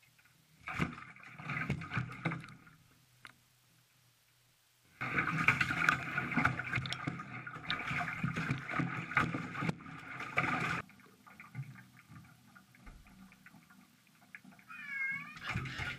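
Wet domestic cat meowing and yowling in protest at its bath, mixed with splashing water. The loudest stretch lasts about six seconds in the middle, and a short meow comes near the end.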